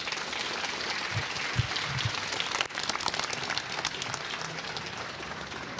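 Audience applauding, a dense patter of clapping that eases off slightly toward the end.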